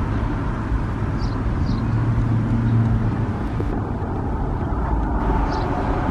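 Street traffic: cars rolling slowly along a city boulevard, with a steady low engine hum that swells a little about two to three seconds in.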